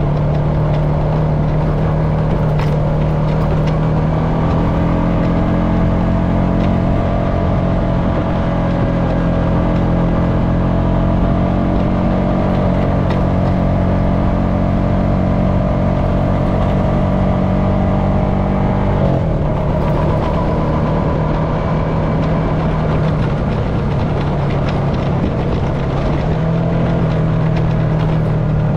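Honda FourTrax Foreman ATV's single-cylinder four-stroke engine running under way on a dirt trail. Its note climbs slowly, drops suddenly about two-thirds of the way through, then holds steady.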